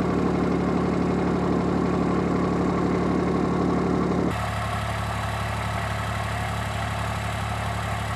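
Side-by-side utility vehicle's engine idling steadily, heard from inside the cab. About four seconds in, the sound cuts to a quieter, duller idle.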